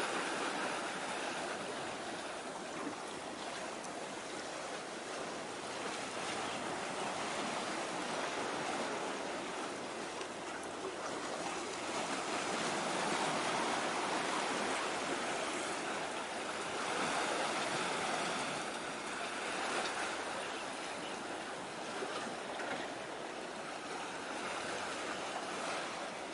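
Sea waves washing in, a steady rushing hiss that swells and eases every few seconds.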